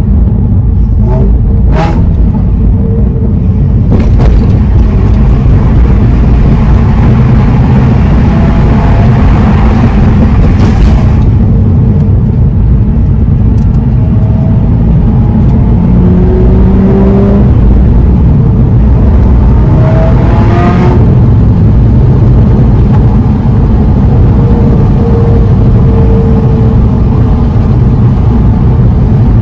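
Nissan Fairlady Z (Z34) 3.7-litre V6 and road noise from inside the moving car: a steady low rumble, the engine note rising several times as the car accelerates. A few sharp knocks near the start.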